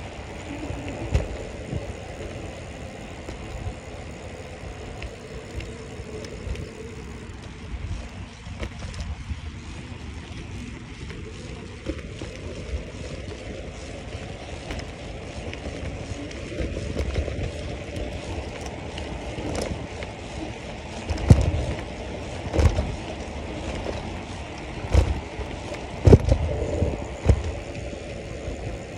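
Steady rush of wind and tyre noise from a bicycle rolling along a paved path, with a few sharp knocks in the last several seconds.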